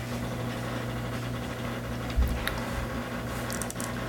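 PC floppy drive running by itself, over and over, which the owner ties to having installed McAfee: a steady hum with a low thump about two seconds in and a quick run of fine clicks near the end.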